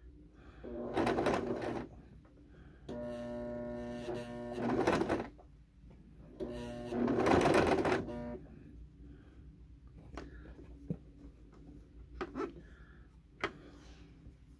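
Electric sewing machine zigzag-stitching through coiled cotton rope, run slowly in three short stretches over the first eight seconds with a steady motor hum between them. It then stops, leaving a few light clicks as the rope coil is handled and repositioned.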